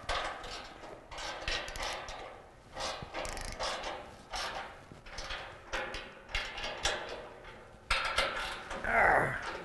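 Short socket ratchets tightening the steel workbench's frame bolts: bursts of ratchet clicking, about one to two strokes a second.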